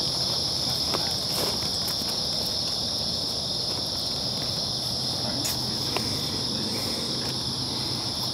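Steady chorus of crickets, a continuous high-pitched trill, with a few faint clicks.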